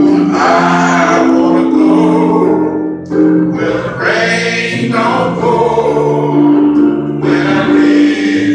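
Male gospel choir singing in harmony, several voices holding long notes together.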